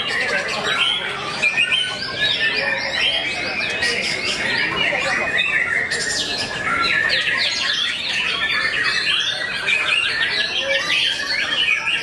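Several caged white-rumped shamas singing at once: a dense, unbroken tangle of fast chirps, trills and whistles.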